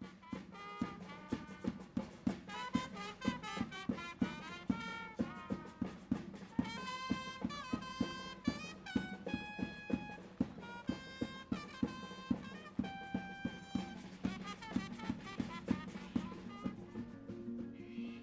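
Intro music: an upbeat tune with a steady drum beat of about two to three hits a second under a brass-like melody.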